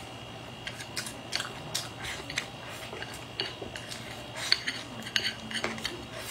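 Close-miked eating sounds: biting and chewing a mouthful of braised loach, with irregular sharp clicks coming a couple of times a second.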